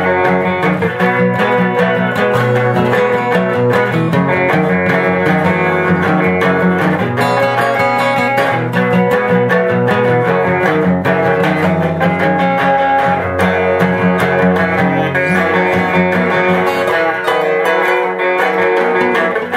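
Background music led by plucked guitar, playing steadily.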